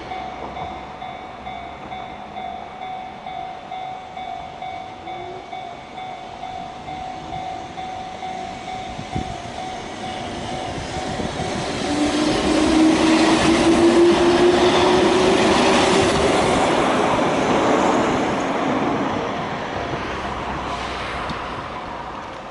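Level-crossing warning bell ringing in a steady repeating beat, then a Keihan 600 series electric train passing over the crossing about halfway through. Its motor whine rises in pitch and the wheels rattle over the rails, then the train noise fades away over the last few seconds.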